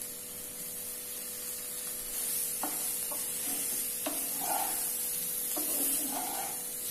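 Spatula stirring boiled cauliflower florets through a spiced onion-and-pepper masala in a speckled nonstick wok, sautéing them. A steady frying sizzle runs under scraping and a few knocks of the spatula against the pan from about two and a half seconds in.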